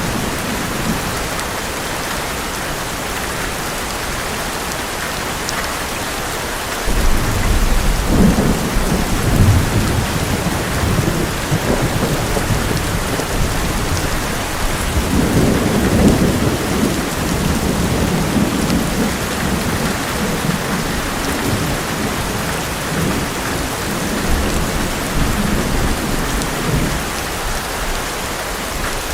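Heavy rain drumming steadily on an old metal roof, with a long roll of thunder that breaks in about a quarter of the way through, swells twice and slowly dies away near the end.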